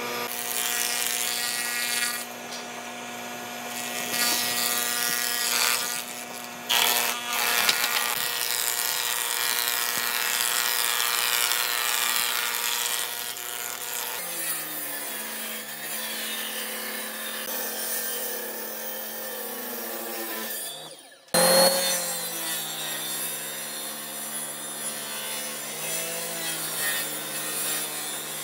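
Woodworking machines running and cutting pine boards: an electric thickness planer with a steady motor hum through most of it. The sound changes abruptly about halfway in, and again after a brief drop about three quarters of the way in, where a table saw takes over.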